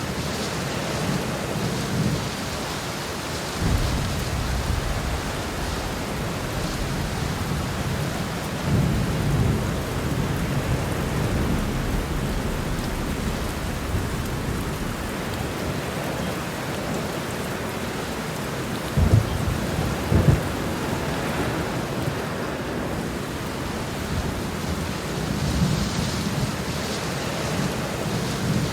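Heavy rain falling steadily while thunder rumbles low several times. Two sharp, loud claps of thunder come close together about two-thirds of the way through.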